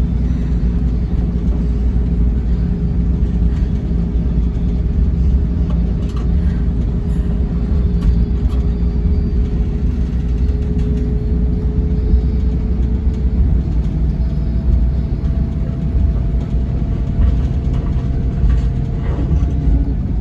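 Scania K450 coach's 13-litre inline-six diesel and driveline giving a steady, loud low rumble on the move, heard inside the cabin. Over it runs a steady whine that shifts to a higher pitch about two-thirds of the way through.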